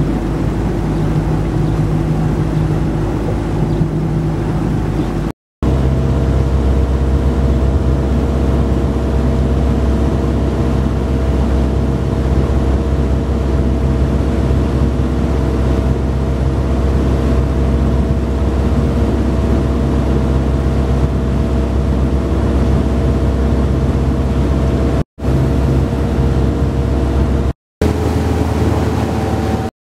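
Motorboat engine running at steady cruising speed: a loud, even low hum. It cuts to silence for a moment four times, once about five seconds in and three times near the end.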